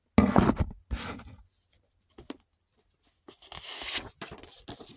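A stack of paper cards being handled and thumbed through: a loud bump just after the start, then a papery rustle as the cards are riffled about three and a half seconds in, with scattered small clicks of cards between.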